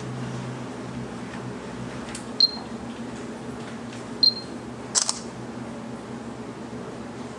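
Northern cardinal giving two sharp, high chip notes about two seconds apart, followed about a second later by a sharp double click, over a steady low hum.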